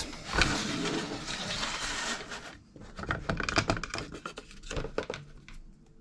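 Late 2014 Mac mini logic board sliding out of its aluminium case: a continuous scraping rush for about two and a half seconds, then a run of light clicks and knocks as the board comes free.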